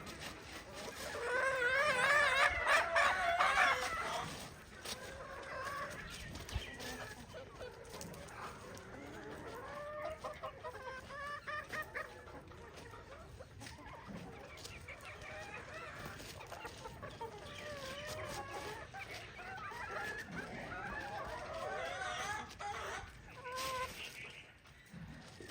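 A flock of chickens clucking and calling over one another, with a rooster crowing loudly about a second in.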